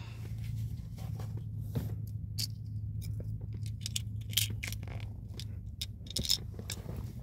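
Fingers handling and prying at a miniature plastic syrup-bottle toy, giving scattered small plastic clicks and scrapes. A steady low hum from the car runs underneath.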